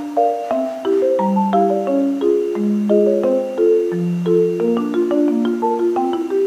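Background music: a light melody of short, struck pitched notes, several sounding together.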